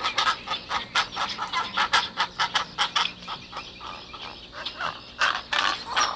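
Pelicans calling: a quick run of short, harsh calls and clicks over a low steady hum.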